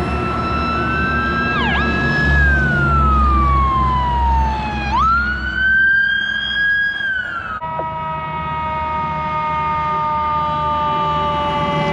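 Fire truck siren wailing: the tone rises, falls slowly, sweeps quickly back up about five seconds in and holds, then drops to a lower pitch that keeps sliding down as the truck moves away. A heavy truck engine rumbles underneath.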